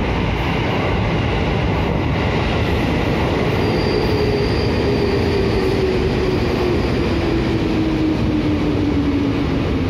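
JR 205-0 series electric multiple unit running alongside a station platform, with wheels and rail noise and a steady traction-motor whine that falls slowly in pitch as the train slows. A faint high squeal comes in the middle.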